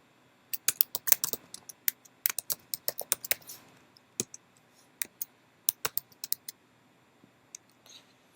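Typing on a computer keyboard: irregular flurries of key clicks, busiest in the first half, then a few scattered keystrokes.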